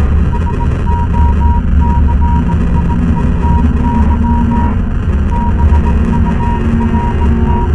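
Electronic soundtrack: a deep, steady rumbling drone with held lower tones, overlaid by a high beeping tone that pulses on and off in an irregular dot-and-dash pattern, breaking off briefly a little past the middle.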